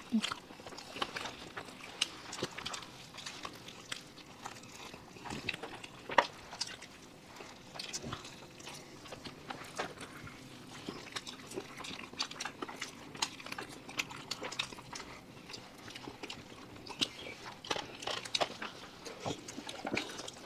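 People eating quickly: irregular chewing, biting and mouth clicks, with occasional small taps and knocks of food or hands against plates.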